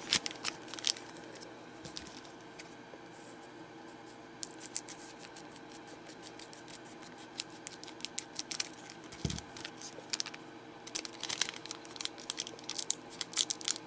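Foil trading-card booster pack crinkling and crackling in the hands as it is worked open, a stubborn wrapper that won't tear cleanly. The crackles come in bunches: at the start, around five and eight seconds in, and in a longer run near the end, with one soft thump partway through.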